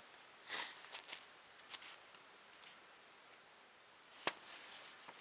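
Quiet handling noises: a few soft rustles and light clicks in the first two seconds, then a single sharper click about four seconds in.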